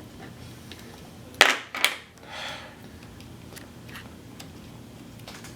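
Small metal trigger parts and springs of a Tippmann 98 paintball marker being handled and fitted into the receiver: two sharp clicks about half a second apart, followed by a brief soft rustle, with faint small ticks around them.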